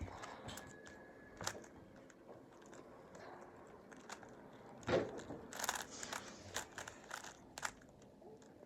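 Plastic Rubik's cube being turned by hand during a solve, its layers clicking in scattered short clicks. There is a sharper click about five seconds in and a quicker run of turns just after.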